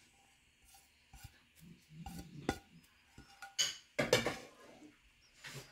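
A spatula knocking and scraping against a metal kadhai as ground flaxseed is stirred in hot ghee: a few light knocks at first, then louder scrapes about three and a half to four seconds in and once more near the end.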